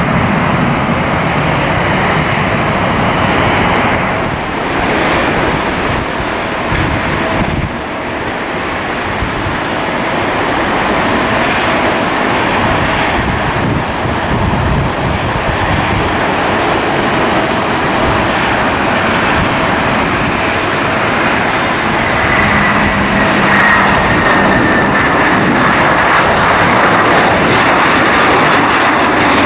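Airliner engines running loud and steady, with a high whine that falls slowly in the second half. Wind is buffeting the microphone.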